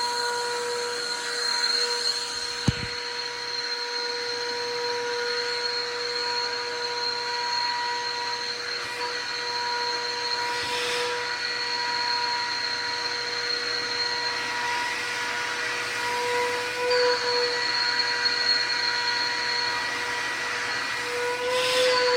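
Stanley 4-gallon wet/dry shop vacuum running steadily, its motor giving a constant whine over a rush of air. A sharp click sounds once a few seconds in, and the whine shifts slightly twice near the end.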